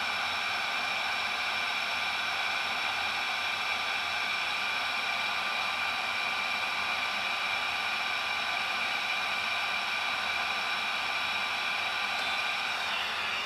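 Dental LED curing light running, its small cooling fan giving a steady whir with a high whine. Near the end the whine drops in pitch as the light switches off and the fan winds down.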